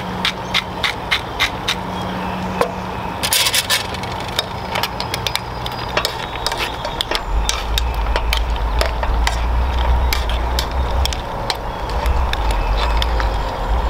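Wooden pepper mill grinding over the pan in a quick run of clicks, then a spoon scraping and clicking against a steaming pan of mussels and clams. A low rumble sets in about halfway.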